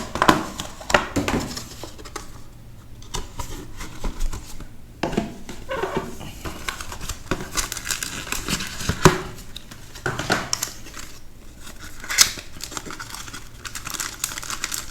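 Card-box packaging being handled and opened: crinkling and tearing with scattered clicks and taps.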